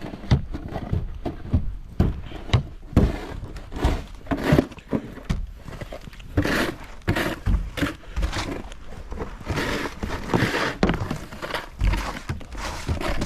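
Crunching and scraping in dry, fluffy snow in irregular strokes, some short and some drawn out over a second or so.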